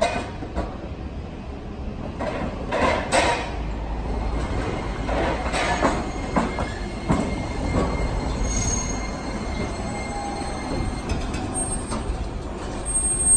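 Iyotetsu streetcar rolling in on street track and drawing up to the platform: a few sharp knocks of the wheels over the rails early on, then a low rumble as it comes alongside, ending in a thin, high wheel squeal as it slows to a stop.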